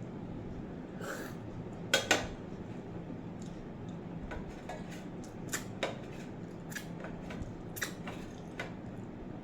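Dishes clinking and tapping during a meal: two sharp clinks about two seconds in, then several lighter taps, over a steady low hum.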